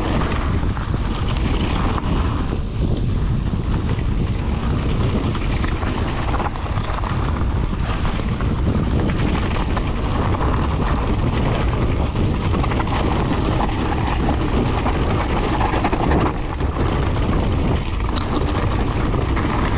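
Wind buffeting the microphone and tyres rolling and crunching over a loose gravel trail as a mountain bike descends at speed, with the bike rattling over the rough surface.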